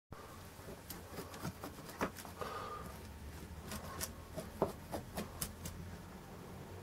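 Scattered light clicks and taps, with a brief scrape about two and a half seconds in, from tools and glass being handled on a stained glass panel, over a low steady hum.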